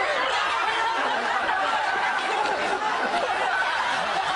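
Many voices laughing and chattering at once, like a studio audience or panel reacting.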